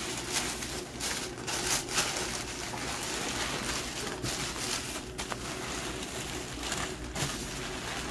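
White packing paper crinkling and rustling in irregular bursts as it is pulled and unwrapped from around a potted plant.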